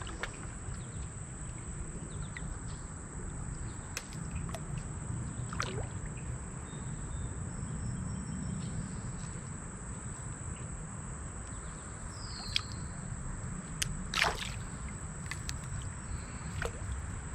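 Creek water sloshing and splashing at the legs of someone wading, over a steady low rush of moving water, with a few sharp splashes or knocks, the loudest about fourteen seconds in.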